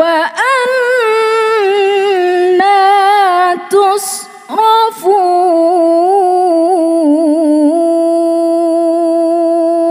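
A woman reciting the Quran in the melodic tilawah style: a long, richly ornamented sung phrase, broken by a quick breath about four seconds in, then closing on one long held note near the end.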